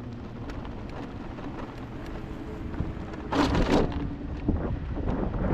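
Low rumbling wind noise on the microphone, with a brief loud noise about three and a half seconds in.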